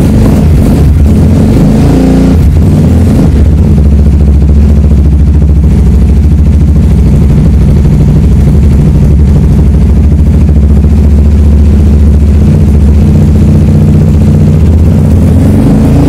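Kawasaki Ninja sport bike engine running just after starting: a short rev about two seconds in, then a steady idle.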